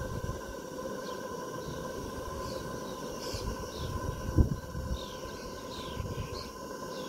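Small birds chirping in short, falling notes over a steady hum, with one dull knock about four and a half seconds in.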